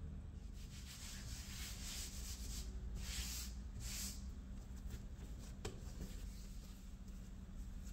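A hand sweeping and rubbing flour across a worktop: dry swishing strokes, strongest about three to four seconds in. A single light tap near six seconds, as the dough ball is set down.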